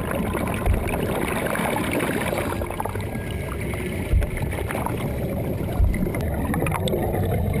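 Muffled underwater rushing and gurgling of air bubbles streaming out of a submerged, flooding car, with three dull low thumps along the way.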